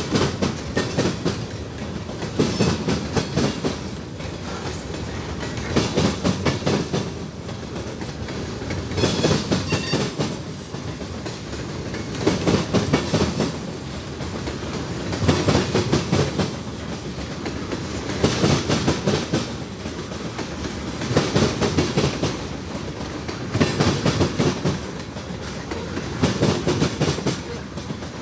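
Freight cars rolling past slowly, their steel wheels clattering over rail joints with a low rumble underneath. A burst of clacks comes about every three seconds as each car's wheel sets cross.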